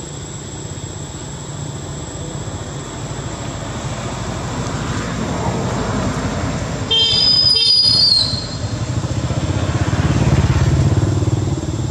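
A motor vehicle's engine running and growing louder as it comes closer, with a horn honking once for about a second roughly seven seconds in.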